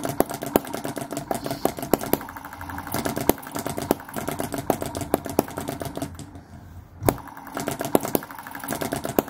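A small model hit-and-miss petrol engine runs with a fast, light mechanical clatter, broken by irregular sharper cracks. It is struggling to run properly.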